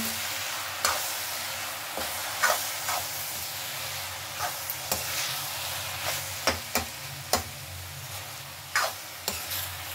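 Chopped water spinach (nari saag) sizzling as it is fried on full flame in a metal kadhai, cooking off the water the greens have released. It is stirred with a spatula that scrapes and clicks against the pan at irregular moments.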